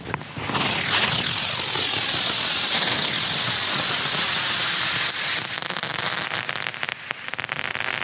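Several Xplode Crackling Bird winged rising fireworks climbing with a loud, steady hiss of burning propellant. From about five seconds in, the hiss gives way to a rapid crackle of many tiny pops: the crackling finale.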